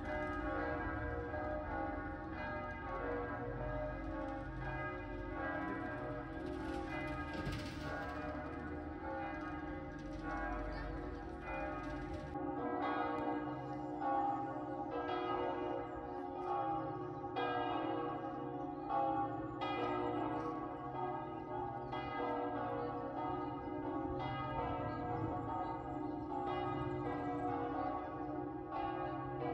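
Church bells ringing, with overlapping strokes about once a second, each left to ring on. A low rumble underneath stops abruptly about twelve seconds in.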